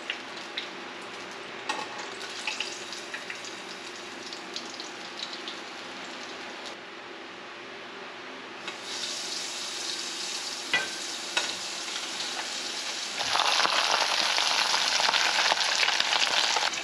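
Salt-and-turmeric-coated shad fillets frying in lard in a small pan: a steady sizzle with a few clicks of metal tongs against the pan. The sizzle grows louder about halfway through as the next fillets go into the hot fat, and louder still near the end.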